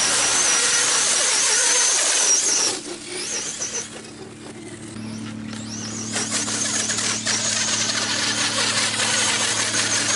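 Basher BSR 4WD rally RC car hydroplaning across water: a high-pitched whine from its electric motor and drivetrain, wavering with the throttle over the hiss of spray. It drops away for a couple of seconds about three seconds in, then comes back. A steady low hum runs underneath from about five seconds in.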